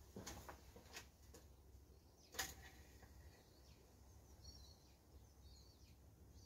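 Near silence with a few small clicks from handling parts in the engine bay, the sharpest about two and a half seconds in, and faint bird chirps in the second half.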